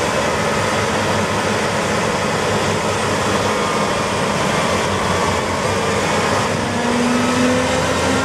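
New Holland FR self-propelled forage harvester driving slowly past, its engine running steadily, with a slight rise in pitch near the end.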